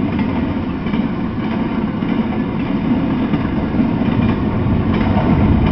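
Double-stack intermodal freight train rolling past: a steady rumble of steel wheels on the rails.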